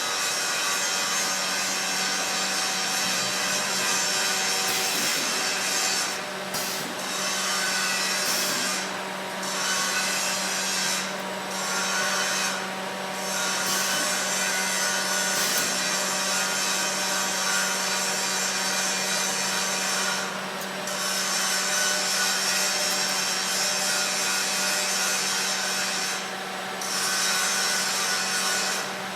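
CNC 2D wire bending machine running: a steady motor hum under a continuous scraping, rubbing noise that drops away briefly several times.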